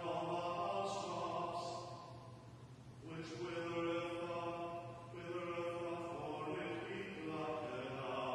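A psalm being chanted: sung lines held on long, steady notes, with a brief lull about two and a half seconds in before the next phrase.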